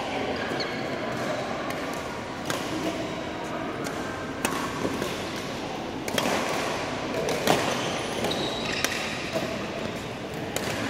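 Badminton rackets striking the shuttlecock in a rally: a sharp smack every second or two over a murmur of background voices.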